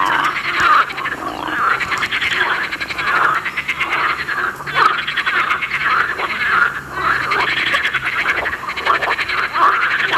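A chorus of frogs calling, with rasping, rapidly pulsed croaks overlapping one after another without a break.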